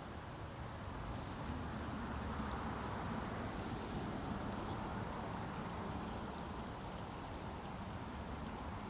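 A steady rushing noise, swelling a little in the middle, with faint high whistles above it.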